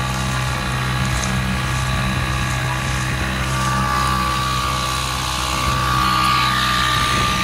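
Outboard motor of an inflatable dinghy running steadily under way, a continuous hum with a higher whine that grows stronger in the second half.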